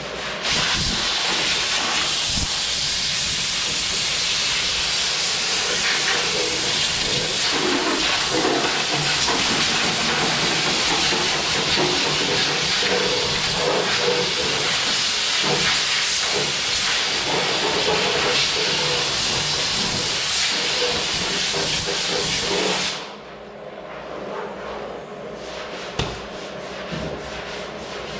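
Loud, steady compressed-air hiss from an air tool worked against the rusted lower quarter panel and rocker of a 1973 Plymouth Duster, cutting off about 23 seconds in and leaving quieter handling and scraping noises.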